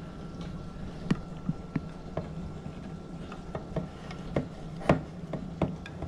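Handheld manual can opener being cranked around a tin can: a run of irregular sharp clicks as the cutting wheel bites and the key is turned, the loudest about five seconds in. A steady low hum runs underneath.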